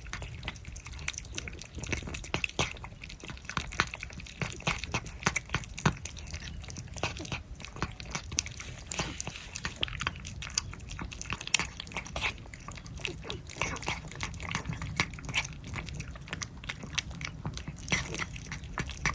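Several cats eating churu lickable treat paste, with quick wet licking and smacking mouth sounds in an irregular, continuous patter.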